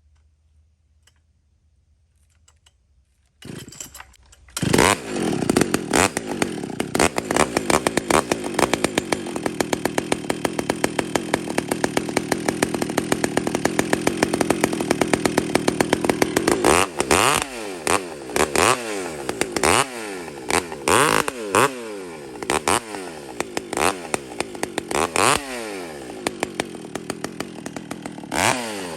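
Two-stroke chainsaw with a freshly hand-filed chain starting up about four seconds in, then running at a steady high speed. From about halfway, its revs rise and fall over and over, roughly once a second.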